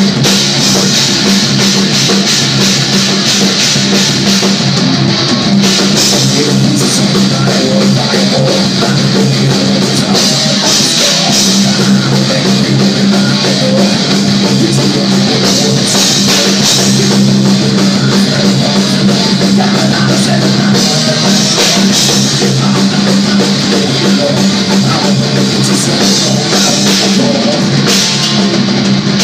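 Heavy metal band playing live and loud: a drum kit with cymbals, electric guitars and bass.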